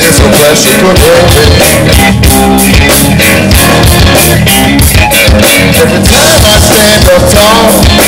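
Live blues-rock band playing loudly: electric guitar, bass guitar and drum kit, with a wavering lead line over a steady drum beat.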